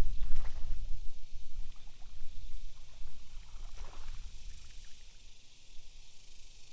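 A hooked bass splashing and thrashing at the water's surface: once shortly after the start and again about four seconds in, over a low rumble.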